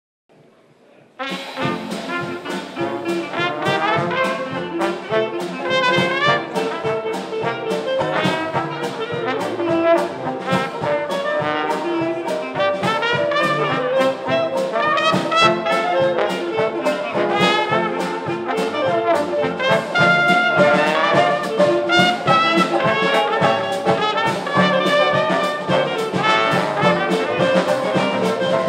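Traditional New Orleans-style jazz band playing, with cornet, trombone and clarinet weaving melody lines over piano, banjo, string bass and drums keeping a steady beat. The music cuts in about a second in.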